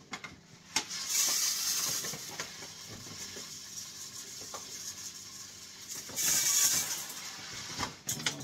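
Dry rice grains pouring out of a plastic bag, a hissing rattle in two spells, the first starting about a second in and the second around six seconds, with a few knocks near the end.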